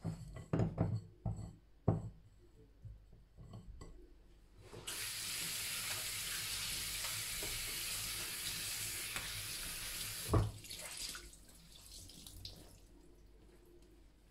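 Kitchen tap running for about five seconds, with water rinsing raisins, then cut off with a knock. A few knocks and clatter of kitchen things come first.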